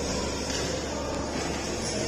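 Steady background din of a large hall: an even noise with a constant low hum and no change in level.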